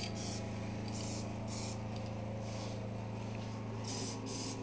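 Aerosol can of black spray paint being sprayed in a series of short hissing bursts, roughly two a second, over a steady low hum.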